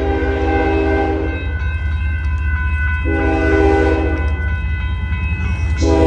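Union Pacific diesel locomotive's multi-chime air horn sounding the grade-crossing signal as the train approaches. A long blast cuts off about one and a half seconds in, a short blast comes around three seconds in, and a final long blast starts near the end, over a steady low rumble.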